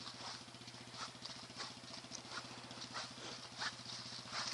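Footsteps crunching through leaf litter on a muddy track at a steady walking pace, about three steps every two seconds, over the low, steady running of a quad bike's engine.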